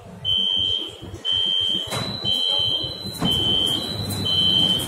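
Metro train door-closing warning beeping as the doors slide shut: five high beeps, each about half a second long, about one a second, with a second higher tone sounding between them and a couple of knocks from the moving doors.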